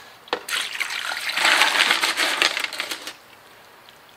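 Water poured from a plastic jug splashes over a strainer full of tumbled rocks and ceramic tumbling media, rinsing off the grit slurry after the second tumbling stage. The pour lasts about two and a half seconds and then stops.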